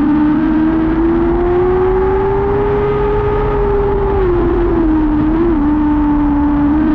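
Lightning sprint car engine running hard on the dirt oval. Its pitch climbs slowly for a few seconds, then drops about four seconds in and wavers before settling.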